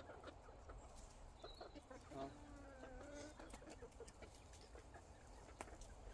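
Chickens clucking faintly: a few short, low calls about two seconds in, amid soft ticks and taps.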